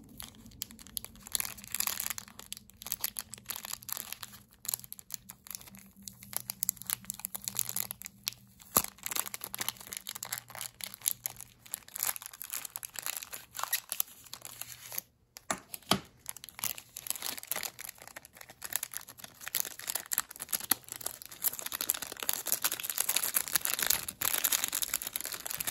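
Clear plastic pen-packaging bag crinkling and crackling as it is handled and opened, in irregular bursts of small crackles that grow busier over the last few seconds.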